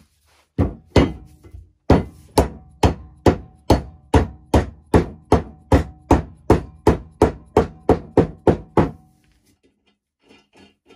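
Soft-faced mallet driving a black plastic square tube insert into the end of a stainless steel square-tube leg: a steady run of about twenty blows, roughly two and a half a second, with a faint ringing tone from the tube under them.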